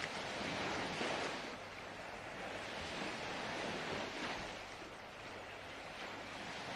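Soft ocean surf, faint and slowly swelling and easing, as a relaxation sound bed.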